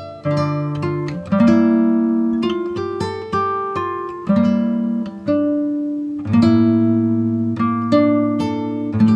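Background music: a guitar playing plucked notes and chords that ring and fade, a new one every half second to a second.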